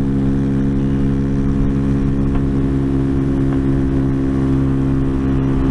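Honda Grom's small single-cylinder engine running at a steady cruising speed while riding, its pitch holding level, with wind rumble underneath.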